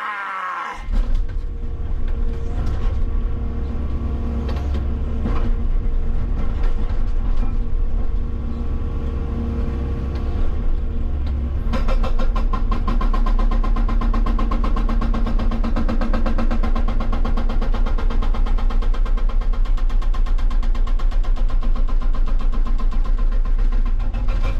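Hitachi 160 excavator working a hydraulic rock breaker against rock: the engine runs under load with irregular knocks at first, and from about halfway through the breaker pounds in a rapid, steady rhythm.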